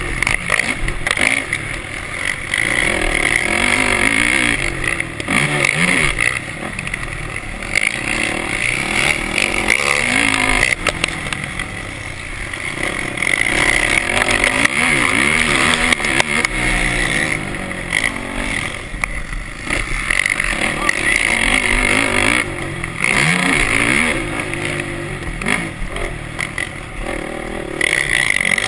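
Racing quad's engine heard from on board, loud throughout, repeatedly revving up and dropping back in pitch as the rider accelerates and eases off through the turns of a dirt track.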